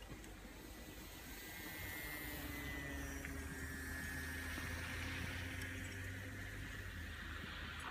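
A faint, steady low rumble of wind on the microphone, with a faint high motor whine that drifts slightly lower in pitch. The rumble grows a little louder about two seconds in.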